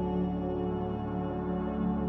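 Background music of sustained, steady droning tones.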